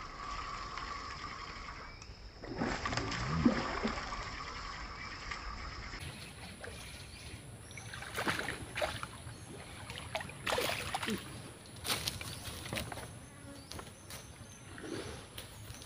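Insects buzzing in a steady high drone over outdoor background noise for the first few seconds. After a cut, scattered sharp clicks and knocks follow, irregularly spaced.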